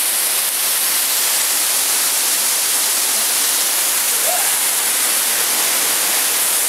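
Small waterfall spilling over boulders, a steady rush of falling water.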